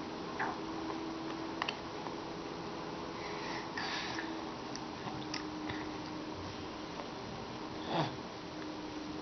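A baby sucking and mouthing a lemon half, with sniffs and a few short wet mouth clicks and smacks. A faint steady hum runs underneath.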